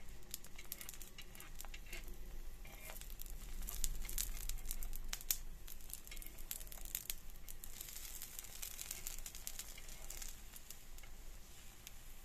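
Pancake batter frying in hot fat on a flat nonstick pan: a steady sizzle full of small, sharp crackling pops.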